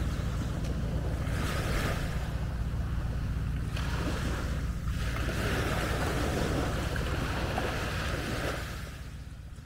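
Small waves washing in and out on a sandy shore, several surges rising and falling, with wind rumbling on the microphone. The sound fades out near the end.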